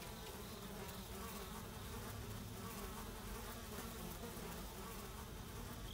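Flies buzzing steadily and faintly, swarming a carcass.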